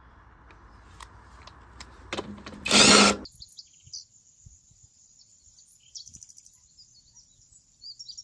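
A few light clicks, then a cheap cordless impact wrench gives one short loud burst about three seconds in. After an abrupt change of scene, birds chirp faintly against a steady high outdoor hiss.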